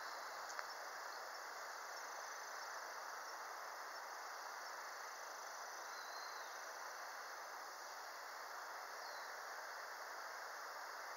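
Crickets calling steadily over a low, even hiss of outdoor background noise, with one brief click about half a second in.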